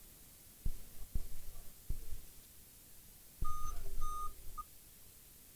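Dell Inspiron N5010 laptop's motherboard beeper sounding its POST beep code at power-on with a blank screen: two short steady beeps and a brief third, about three and a half seconds in. The beeping laptop is a fault the repairer puts down to the graphics chip. Before it come a few dull knocks of the laptop being handled.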